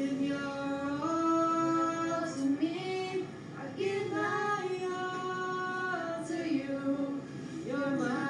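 A woman singing a slow song, holding long notes one after another with short slides between them.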